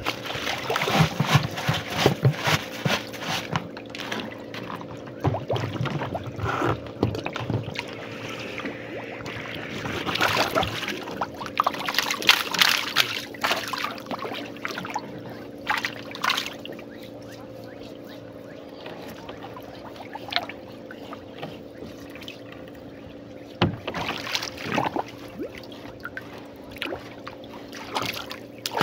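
Water splashing and trickling as a rubber bucket fish trap is handled over the side of a wooden canoe, with irregular splashes and knocks, busiest in the first half, over a steady low hum.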